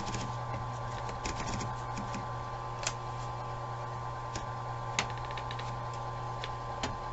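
Smith Corona Coronet Super 12 electric typewriter running with a steady motor hum, while scattered sharp clicks and small knocks come from paper being fed into the carriage. The clearest clicks are about three, five and seven seconds in.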